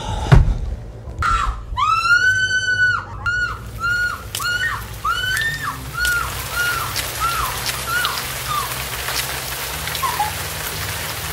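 A woman screaming: one long scream, then a string of shorter repeated cries that grow weaker and die away, as she bursts into flames. Under them a crackling hiss of burning grows.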